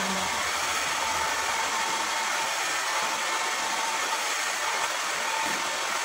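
Hand-held hair dryer with a diffuser attachment running steadily, a constant rush of air with a faint high whine, as it is worked through wet curly hair.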